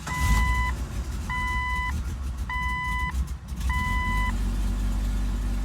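1999 Jeep Cherokee XJ engine starting and running at idle, checked for the rough idle and stalling that the owner blames on the idle air control valve. Over it the dashboard warning chime beeps four times, about a second apart.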